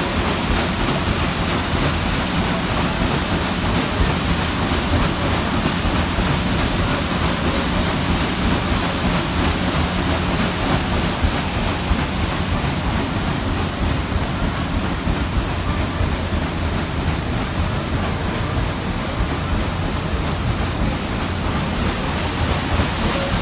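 The red stern paddle wheel of the steamboat Natchez churning and splashing through the river, a steady rushing wash of water. The hiss gets a little duller through the middle and brightens again near the end.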